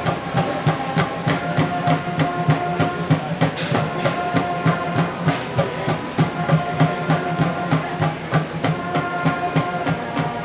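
Marching band percussion playing a steady, quick beat with low drum hits, while held notes sound over it.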